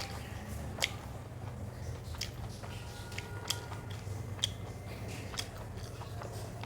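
A person eating a rice meal: chewing and mouth sounds with a few short sharp clicks spread through, over a steady low hum.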